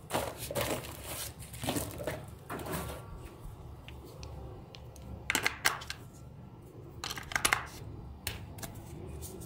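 Plastic clicks and clatter as a toy radio-control transmitter is handled and two batteries are pressed into its open battery compartment, the sharpest clicks coming in two quick clusters about five and seven seconds in.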